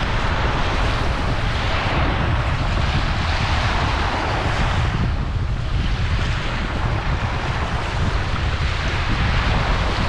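Small surf breaking and washing up a sandy beach, with wind rumbling on the microphone. The wash swells over the first five seconds, eases briefly, then builds again.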